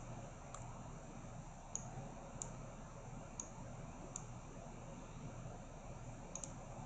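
Computer mouse clicking: about eight short sharp clicks at uneven intervals, two of them in quick succession near the end, over a faint steady room hiss.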